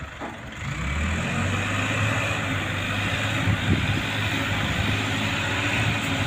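An engine starts up about a second in and then runs steadily at a low, even pitch.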